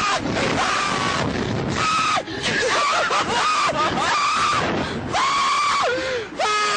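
Two young men screaming in long, high-pitched, repeated cries as a slingshot ride flings them, over a steady rushing wind noise on the microphone.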